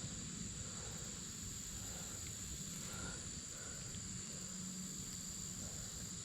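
Insects droning steadily outdoors, a constant high-pitched tone, over a faint low rumble.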